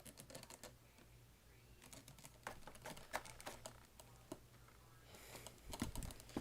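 Scattered light plastic clicks and rattles from the Bissell vacuum's hose and attachments being handled while the machine is off, with a few duller knocks near the end.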